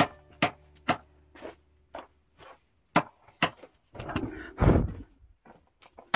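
Hammer blows on wood, about two a second with a gap in the middle, then a louder scraping rustle about four seconds in.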